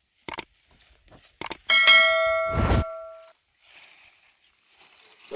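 A few sharp clicks, then a metal object is struck once and rings with a clear bell-like tone that dies away over about a second and a half.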